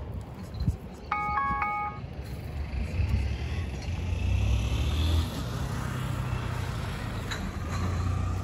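Smartphone countdown-timer alarm playing a short stepped chime once, about a second in, signalling that the time is up. Then a motor vehicle rumbles past on the street, the loudest sound, from about three seconds in.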